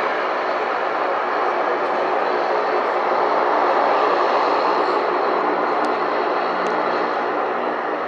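Jet aircraft engines running loud and steady, swelling to a peak about halfway through and easing off slightly toward the end, as a plane moves past.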